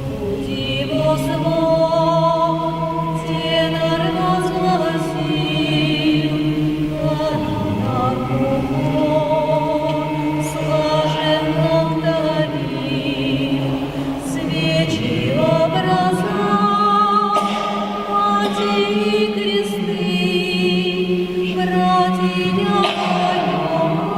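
Vocal ensemble singing in harmony, with long held chords that shift every few seconds and a light vibrato on the upper voices.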